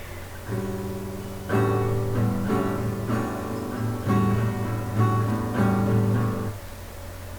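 Background music played on acoustic guitar, chords changing about once a second, dropping away about six and a half seconds in.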